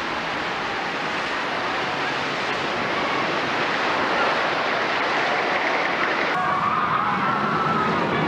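Steady rushing roar of amusement-park ambience around a steel roller coaster. About six seconds in the hiss drops away and a faint wavering high tone comes in.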